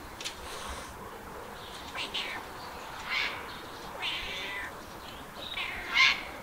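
Cat meowing several short times, the loudest meow near the end.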